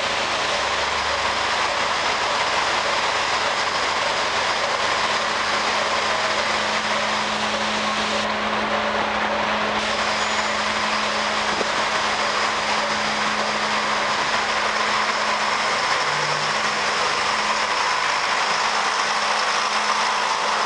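Diesel railcar's engine running steadily at the platform, with a continuous low hum. Near the end the railcar is moving, passing close by as it pulls out.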